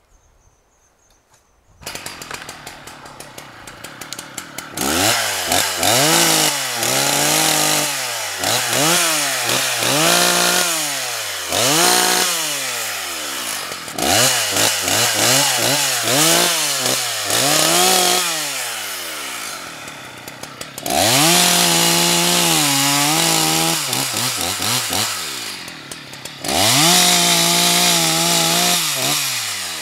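Husqvarna 181 two-stroke chainsaw comes to life about two seconds in and idles briefly. It is then revved up and down over and over. Near the end it is held at full throttle for two longer stretches while the chain cuts into the trunk of a leaning, wind-blown tree, the engine note sagging slightly under load.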